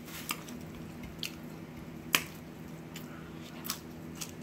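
Wet mouth smacks while chewing food: about five sharp clicks at uneven intervals, the loudest about two seconds in, over a low steady hum.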